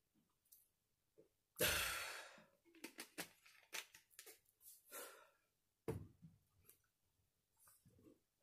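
A loud breathy exhale after a swig of fizzy cola, fading over most of a second. Then the screw cap of a plastic soda bottle is twisted shut with a run of small clicks, and a single knock follows a couple of seconds later.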